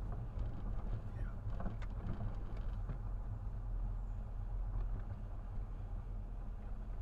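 Car driving slowly, heard from inside the cabin: a steady low engine and road rumble with a few faint clicks.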